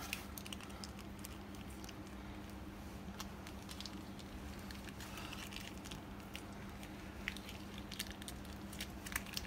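Faint soft clicks and squishes of fingers and a small utensil working spicy cod roe onto mochi pieces in a ceramic dish, over a steady low hum.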